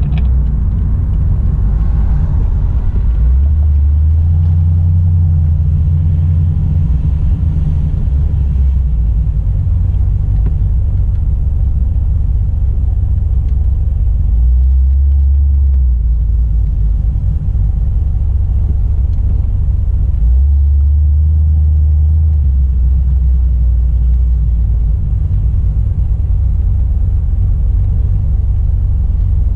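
Engine and modified exhaust of a 2012 Chevrolet Caprice PPV police car rumbling while driving. The low drone steps up and eases back about three times as the engine works harder and then settles.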